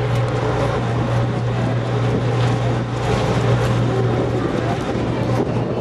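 An engine running steadily at a constant low hum, with the noise of the surroundings over it.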